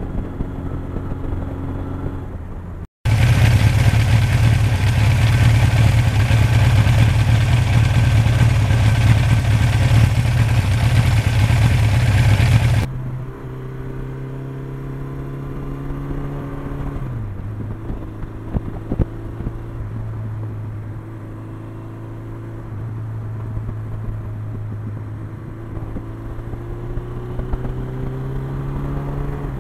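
Suzuki GS motorcycle engine running under way. About three seconds in, a loud rush of wind noise over the microphone swamps it for roughly ten seconds and then cuts off. After that the engine's pitch drops and then climbs again towards the end as the bike picks up speed.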